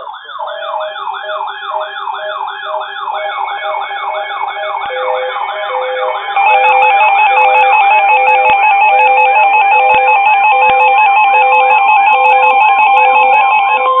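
Layered electronic siren and alert tones: a siren wailing up and down about three times a second over short repeated beeps. About six and a half seconds in, everything gets louder as a steady alert tone and fast high alternating beeps join.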